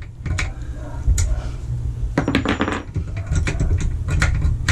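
Light metallic clinks and rattles of a padlock that has just been cut through being handled: a string of short, sharp clicks, coming thicker in the second half.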